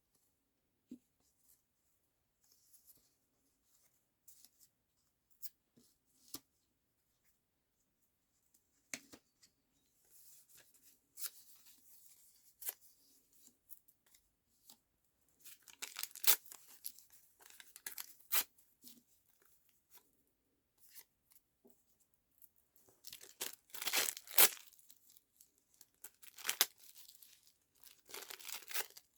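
Paper and tissue-paper scraps being handled: intermittent rustling and crinkling with scattered sharp clicks, in short bursts that get busier in the second half.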